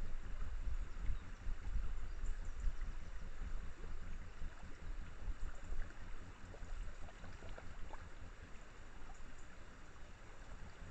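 Stream flowing past rocks: a steady rushing, with a low rumble underneath that eases a little over the second half.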